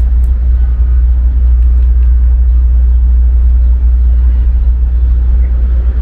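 Loud, steady low rumble of outdoor city ambience, with an even hiss of street noise above it.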